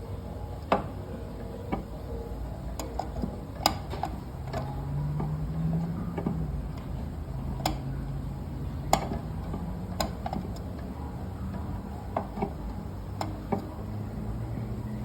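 Steady low hum of a running boiler and its room machinery, with low tones that drift in pitch. About a dozen sharp, irregular clicks and ticks come through it.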